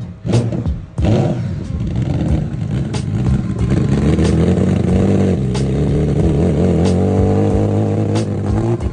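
Laguna Prototype One sports car's engine under hard acceleration: a short drop in level about a second in, as at a gear change, then the engine pulls loud and steady for several seconds before backing off near the end.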